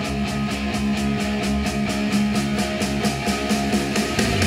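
Rock music with electric guitar and a fast, steady drum beat, played through a pair of Adam Audio T5V studio monitors and picked up by microphones in the room. About four seconds in the bass line changes and the music gets a little louder.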